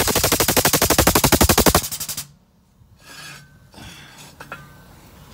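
Rapid, even mechanical clattering from the jacking gear under a truck's rear axle, about fifteen to twenty clicks a second, lasting about two seconds and then stopping. Faint scattered knocks follow.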